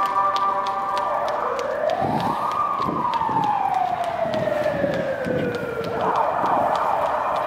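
Emergency vehicle siren wailing. It holds a steady tone, rises in pitch about two seconds in, slowly falls over the next few seconds, then jumps up again near the end.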